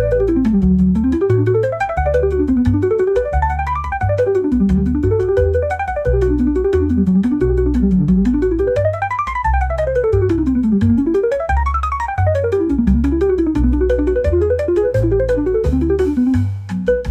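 Instrumental bossa nova music: a piano or keyboard plays fast runs that sweep up and down over a walking bass line, with steady light percussion ticking along. Near the end the runs give way to shorter repeated notes.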